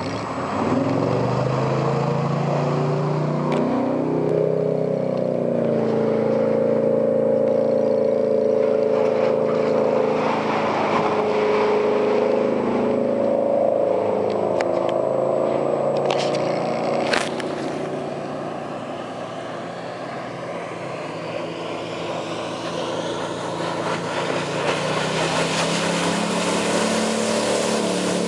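Inboard engine of a 2005 Malibu Sunsetter LXi ski boat accelerating and running under way, with the rush of wind and water over it. The engine pitch climbs in the first few seconds, holds steady, eases off around two-thirds of the way through, then climbs again near the end; a brief sharp knock comes about seventeen seconds in.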